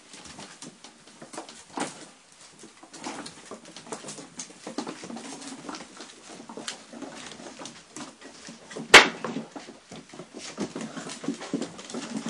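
Month-old Rhodesian Ridgeback puppies play-fighting: soft puppy vocal sounds and many quick taps and clicks of paws and claws on a wooden plank floor. One sharp knock about nine seconds in is the loudest sound.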